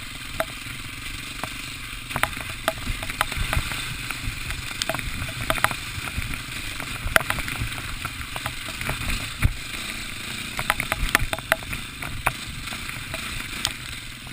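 Wind rumbling on the microphone, with irregular sharp clicks and taps scattered throughout.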